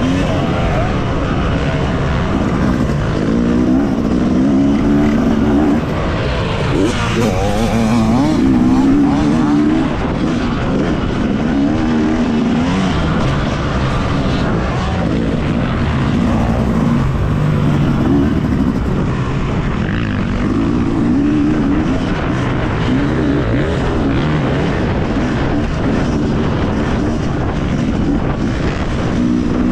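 Yamaha motocross bike's engine heard from on board, loud and continuous, its pitch repeatedly climbing and dropping as the rider works the throttle and gears around the track.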